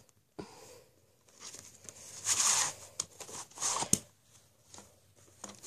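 Hands handling a plastic VHS clamshell case and the cassette inside it: short scraping and rustling noises, with one sharp click just before four seconds in.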